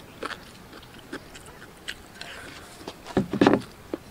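A person eating with chopsticks: chewing and biting, with small clicks, and a louder short clatter about three seconds in.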